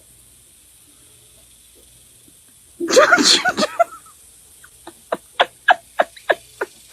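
An animal sneezing: one loud sneeze about three seconds in, then a quick run of short sneezes, about three a second.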